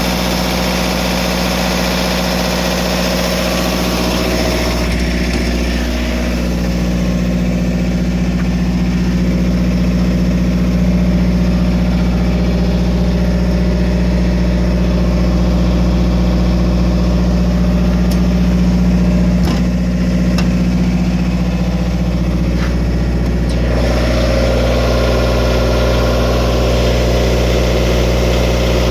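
Cummins AMMPS MEP-1050 15 kW military diesel generator running at a steady speed. Its upper, hissier noise drops back about five seconds in and comes up again near the end, while the low drone stays constant.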